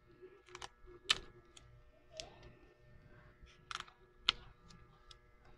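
Faint, irregular clicks and taps of a clear plastic ruler being handled and set in place on pattern paper over a cutting mat, about seven in all, over a faint steady hum.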